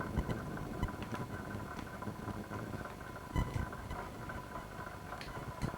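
Handling noise from a camcorder being turned over in the hands: a few scattered plastic knocks and clicks over a steady faint high-pitched tone.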